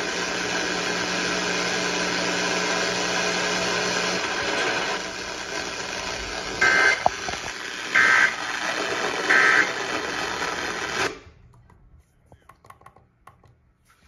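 Hiss from a Sangean weather/FM radio's speaker, broken by three short beeps about a second and a half apart as the radio's buttons are pressed. About eleven seconds in the hiss cuts off suddenly, leaving near silence with faint clicks as the radio changes station.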